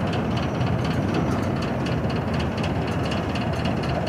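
Passenger train running slowly along the track, heard from an open coach doorway: a steady rumble of wheels on rails with faint repeated clicking over it.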